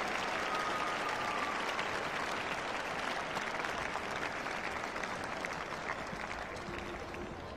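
Arena crowd applauding, a dense patter of many hands that slowly fades.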